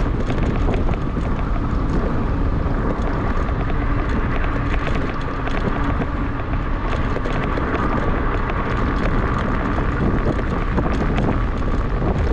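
Wind rushing over an action camera's microphone on a moving electric bike, with road rumble and frequent small clicks and rattles. A faint steady whine runs underneath.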